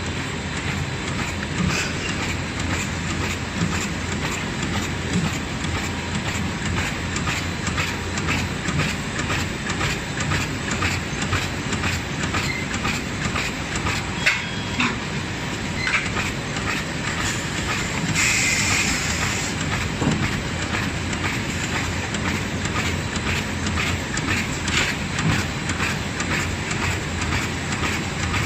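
Automatic two-tier, four-lane plastic bag cutting machine running, with a steady mechanical drone and a rapid, regular clatter from its cutting cycle. A short hiss sounds about two-thirds of the way through.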